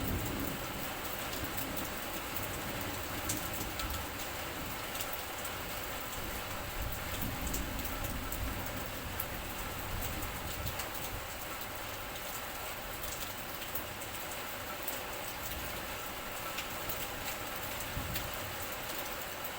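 Steady rain, falling as an even hiss with many small sharp drop ticks scattered through it.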